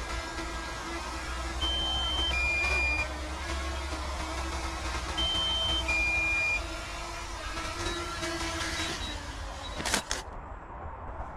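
Small DJI quadcopter coming down to land, its propellers whirring, while a falling two-note warning beep sounds twice, a few seconds apart. About ten seconds in there is a click and the propeller whir cuts off as the motors stop.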